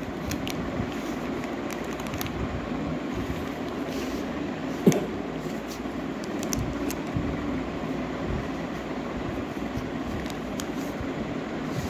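Steady background hum with light crinkling and clicking as a metal carburetor is handled on a clear plastic bag, and one sharper click about five seconds in.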